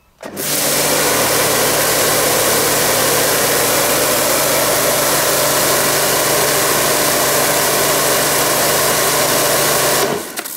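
Ruris Pro Power Jet 1900 pressure washer running, its 2500 W induction motor humming steadily under a loud hiss of water jetting from the floor brush's nozzles. It starts suddenly just after the beginning and cuts off suddenly shortly before the end.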